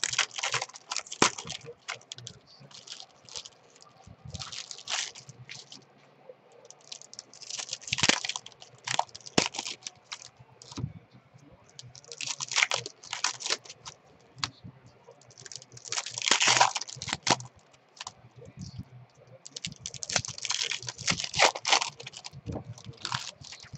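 Foil wrappers of Topps baseball card packs crinkling and tearing as they are opened and crumpled by hand, in bursts every few seconds. Light clicks and rustles of the cards being handled come between the bursts.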